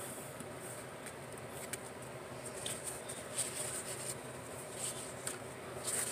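Faint rustling, sliding and light taps of cardstock greeting cards being picked up, fanned out in the hand and laid down on a table, over a low steady background noise.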